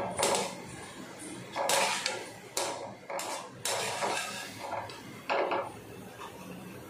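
A steel wire-mesh skimmer scraping and knocking against a kadai of frying oil as gulab jamun are turned and scooped out: about six short scrapes and clanks spread over several seconds.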